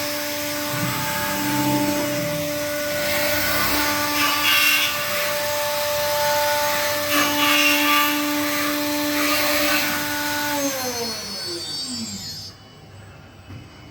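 Woodworking CNC machining center running with a steady high whine over a hiss of cutting noise; after about ten seconds the whine falls in pitch as the spindle spins down, and the sound drops away.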